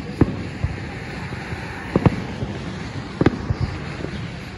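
Aerial firework shells bursting far off, a series of sharp booms: one near the start, two in quick succession about two seconds in, and another a little after three seconds, over a steady background noise.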